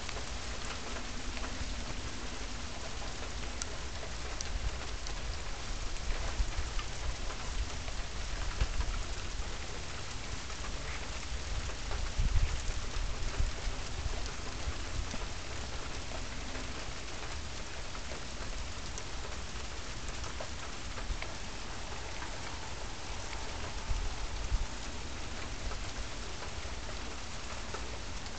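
Steady rain falling in a thunderstorm, as an even hiss of drops, with a deep low rumble underneath that swells a few times in the middle.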